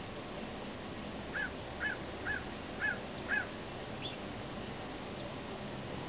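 A bird giving five short calls, about two a second, over steady wind noise.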